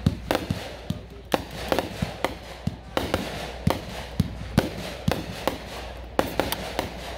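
A 28-shot consumer fireworks cake firing: an irregular string of sharp bangs, about two to three a second, with crackle between them.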